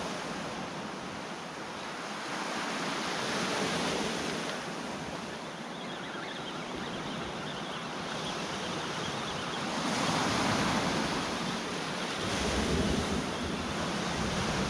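Sea waves washing onto the shore, swelling and easing every few seconds, with wind buffeting the microphone as a low rumble in the second half.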